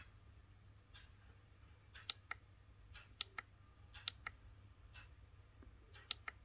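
Faint clicks of the keypad buttons on a Caterpillar Cat 320D excavator monitor being pressed to step through its menus. They start about two seconds in and mostly come in quick pairs.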